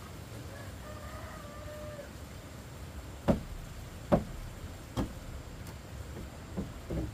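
A chicken gives one short call, then three sharp knocks land a little under a second apart, followed by two lighter knocks near the end.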